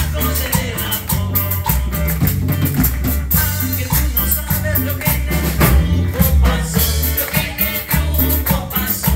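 Live worship band playing an upbeat song: several singers at microphones over electric guitar and drum kit, with a strong bass line and a steady beat.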